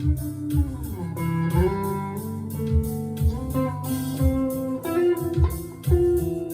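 Rockburn Strat-style electric guitar played through a small valve amp: blues lead lines of held notes with pitch bends or slides, over a steady beat.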